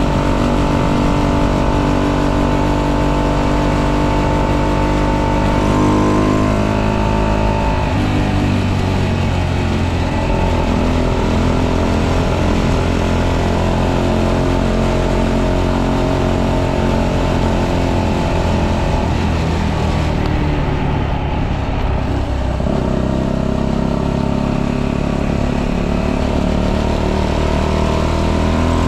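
125cc motorcycle engine with tuned intake and exhaust, heard while riding. It holds steady revs, drops to lower revs about eight seconds in, then pulls again with revs rising toward the end.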